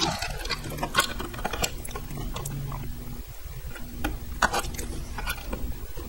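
Scattered small clicks and rubbing as a crimped wire connector is worked onto a terminal inside a plastic project box, with the hands shifting the box and its wires.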